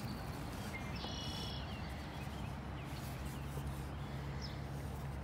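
A bird calling outdoors: a short, high call about a second in and a brief chirp near the end, over a steady low background hum.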